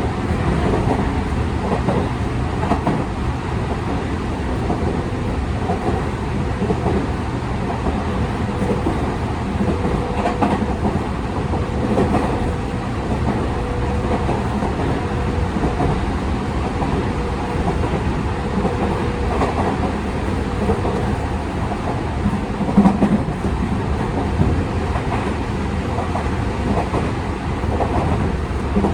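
Running sound of a Tokyu 5000 series EMU motor car, with a Hitachi IGBT-VVVF inverter and TKM-98 traction motors, heard from inside the car while travelling at a steady speed. Wheels rumble and clack over the track, and a faint steady motor tone rises out of the rumble for several seconds in the middle.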